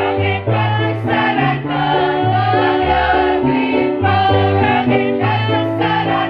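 A choir singing a song together, sustained notes moving from pitch to pitch about every half second without a pause.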